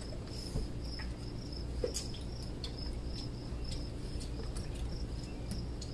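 Crickets chirping steadily outdoors, a high chirp repeated about two or three times a second, with a few light clicks over it.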